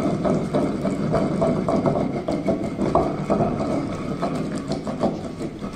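Wooden pestle pounding in a stone mortar: a steady run of quick knocks as a wet green paste is crushed.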